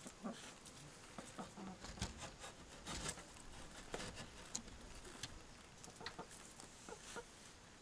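Hens clucking softly, with scattered light taps and rustles.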